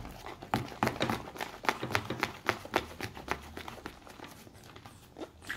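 A utensil stirring homemade slime in a plastic bowl, clicking and scraping against the bowl in rapid strokes, several a second, that thin out past the middle. The mixture has been activated and is thickening to the right consistency.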